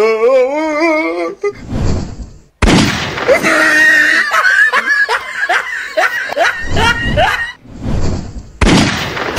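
Men in the Holi comedy clip yelling and screaming over a noisy background. It opens with a wavering, wailing cry, and from about two and a half seconds in there are many short, rising cries.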